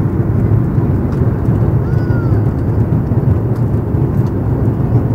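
Airbus A330 airliner on its landing approach: engine and airflow noise, a steady low rumble.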